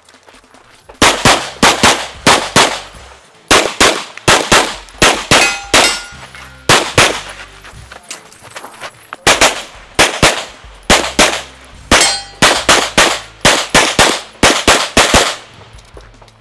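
Competition handgun fired in rapid strings of shots, with short pauses between strings as the shooter moves. A few shots are followed by the brief metallic ring of struck steel targets.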